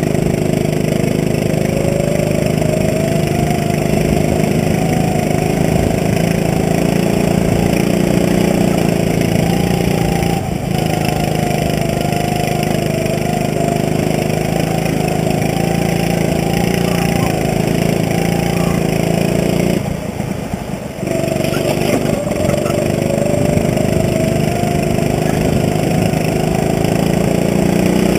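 Rental go-kart engine running hard through a lap, its pitch rising and falling with the throttle through the corners. About two-thirds of the way in it drops away for about a second, as on a lift off the throttle, then picks up again.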